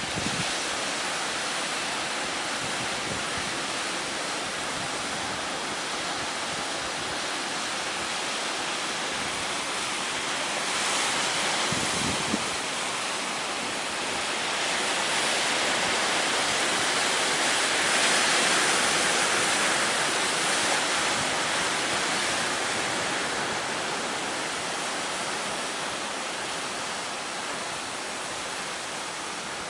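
High surf breaking in strong wind: a continuous wash of waves that swells louder a little past a third of the way in and again around the middle, loudest about two-thirds through.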